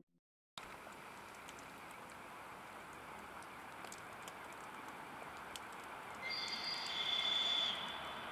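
Distant approach of a ChS4 electric locomotive with a passenger train: a faint steady hiss with scattered light clicks. About six seconds in, a high steady tone sounds for about a second and a half.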